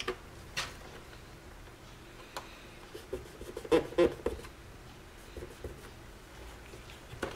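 Hands handling a PlayStation 3's glossy plastic casing: a few light taps and clicks. The loudest come about four seconds in, as the front flap over the memory card slots is flipped open.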